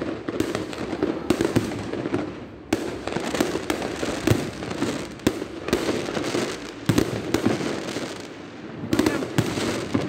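Aerial firework shells bursting in quick succession, a rapid run of bangs that eases off briefly about eight seconds in and then picks up again.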